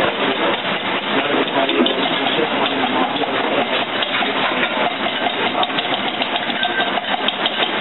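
Wire whisk beating fast against a stainless steel mixing bowl: a rapid, continuous metallic clicking.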